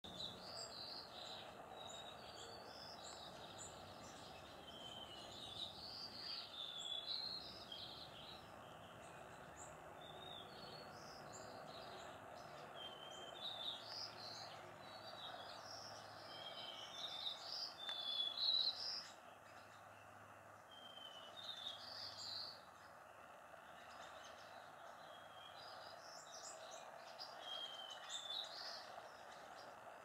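A flock of white-crowned sparrows calling: many short, high chirps scattered throughout, busiest around the middle, over a steady faint background hiss.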